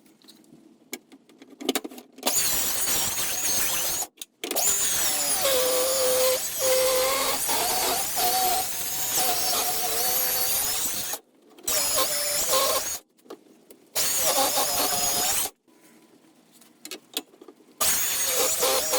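Power tool cutting timber in several passes, its tone dipping and wavering under load, as about 10mm is trimmed off every edge of the frame. It starts and stops abruptly several times.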